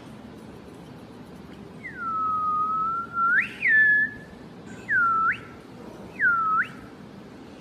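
Human whistling: four sliding notes starting about two seconds in, each dipping low and then swooping sharply up, the first held longest.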